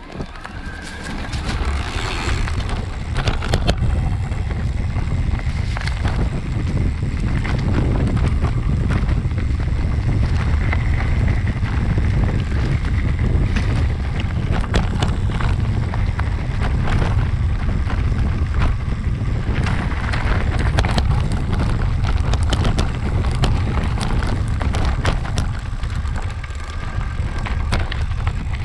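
Mountain bike rolling down a dirt trail, heard from a camera mounted on its rear triangle: a steady heavy rumble of tyres and wind, with frequent knocks and rattles from the chain and frame over bumps.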